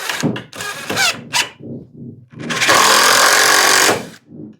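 Power drill driving a screw into wood: a few short bursts, then a steady run of about a second and a half.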